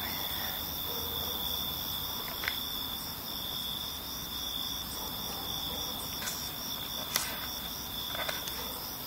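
Crickets chirping in a steady chorus: one unbroken high trill with a second, higher chirp pulsing evenly above it. A few faint clicks fall in, the sharpest about seven seconds in.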